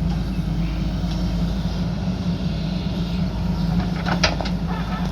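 JCB backhoe loader's diesel engine running steadily under work, with a short cluster of sharp knocks about four seconds in.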